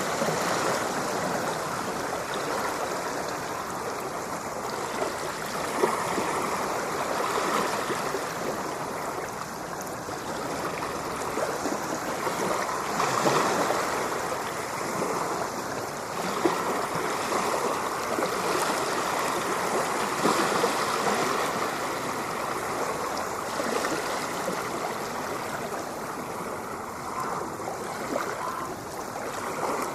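Continuous rushing, splashing water, a steady wash that swells slightly every few seconds.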